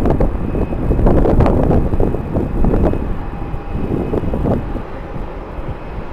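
Strong, gusty wind buffeting the microphone, with the steady sound of a jet airliner's engines underneath; the gusts ease slightly in the second half.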